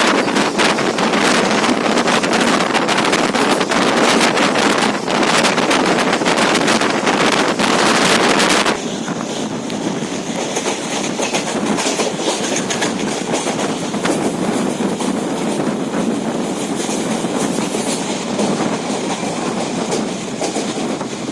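A passenger train running, heard from inside the carriage as a loud, steady rushing noise that drops suddenly and turns quieter about nine seconds in.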